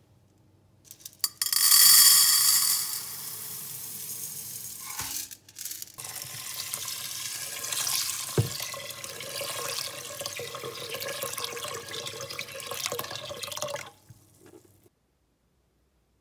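Mixed grains poured from a plastic canister rattle into a Cuckoo rice cooker's inner pot, the loudest part, then bottled water is poured over them in a steady splashing stream for about eight seconds, with a single low thump partway through.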